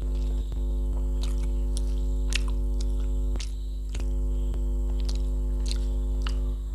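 Steady electrical mains hum, dipping briefly about halfway, under a scatter of short wet clicks and smacks of eating by hand: fingers squishing rice and curry together, and chewing.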